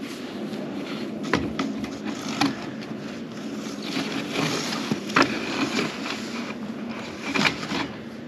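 Orange plastic drain pipe being forced by hand into the rubber-sealed socket of a fitting without lubricant, scraping with several sharp knocks of plastic on plastic as the stiff push-fit joint goes together.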